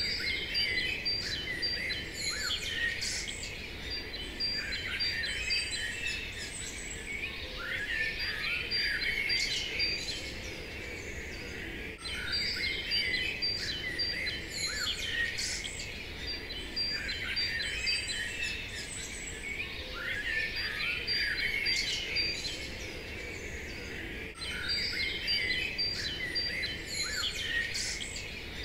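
Many birds chirping and singing at once, a steady chorus of short calls and trills. The same stretch of recording repeats about every twelve seconds.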